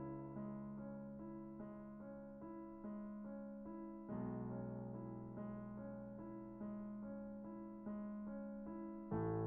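Background piano music: an even run of notes over sustained chords, the harmony changing about four seconds in and again near the end.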